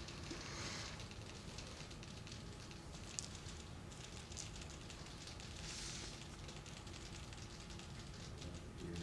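Faint scattered clicks of buttons pressed on handheld iClicker remotes as text is keyed in, with a few brief rustles over quiet room hiss.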